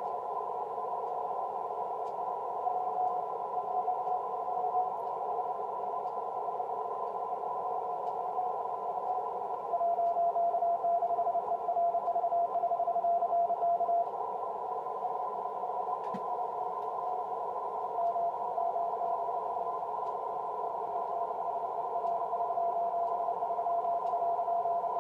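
Yaesu FT-736 receiver on 6-metre CW at 50.105 MHz, giving out a weak Morse code tone from the station 3B9FR, heard in band hiss through a narrow CW filter. The tone fades in and out and comes up strongest for about four seconds starting around ten seconds in.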